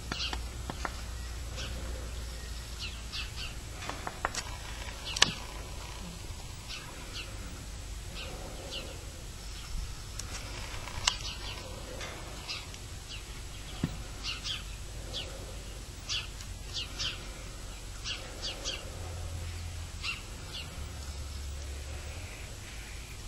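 Birds chirping outdoors: short high calls repeated every second or so, over a steady low rumble. A few sharp clicks cut in, the loudest about five seconds in.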